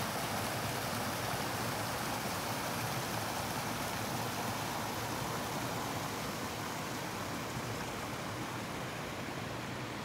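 Creek water rushing over a small cascade at a fallen log, a steady rush that slowly grows softer.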